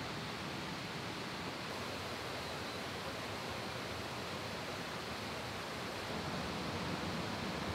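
Steady rushing of a mountain stream in a valley, an even hiss of flowing water that grows a little louder about six seconds in.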